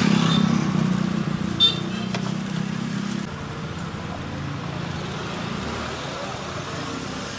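Street traffic: a vehicle engine running close by with a steady hum, cutting off about three seconds in, leaving steady road noise. A single sharp click sounds about a second and a half in.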